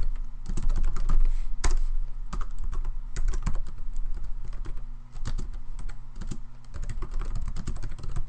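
Typing on a computer keyboard: irregular keystrokes, several a second, over a steady low hum.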